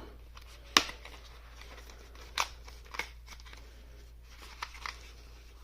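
Handling of a metal staple gun and a strip of staples: one sharp click a little under a second in, then a few softer clicks and rustles.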